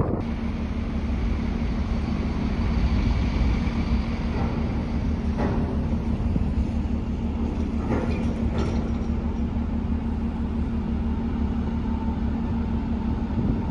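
A moored car ferry's machinery running: a steady low drone with a constant hum under it. Two faint knocks come about five and eight seconds in.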